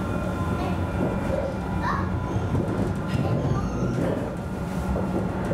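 Alstom Citadis tram running along the track, heard from inside the driver's cab: a steady rumble with faint steady tones above it.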